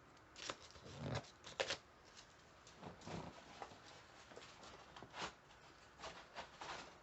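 Handling noise: irregular light clicks, taps and rustles of small tools and parts being moved about and set down on a work surface.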